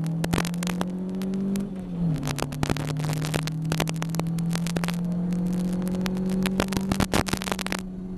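Ginetta G40 race car's four-cylinder engine heard from inside the cockpit, pulling hard under acceleration: the pitch rises, drops sharply about two seconds in with an upshift, then climbs slowly again in the next gear. Frequent sharp clicks and knocks sound over the engine throughout.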